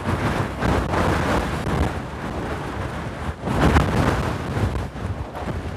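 Strong wind buffeting the microphone: a gusting rumble that swells and eases, loudest a little under four seconds in.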